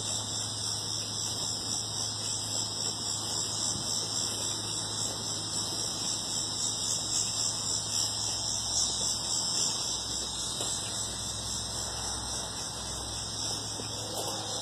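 Steady, unbroken high-pitched insect chorus in the trees and grass, with a faint low hum underneath.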